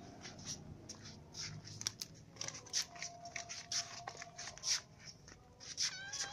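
Cats crunching on dry crackers: a run of irregular, sharp crunches, with a brief high mew near the end.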